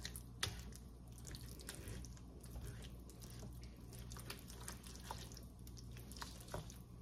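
A spoon stirring thick meat sauce with cream cheese in a pot: faint wet squishing with scattered light clicks of the spoon against the pan, over a steady low hum.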